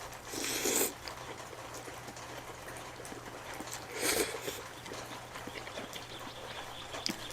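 Two short eating noises from someone eating spicy cheesy noodles and king crab, one just after the start and one about four seconds in, over a faint steady low hum.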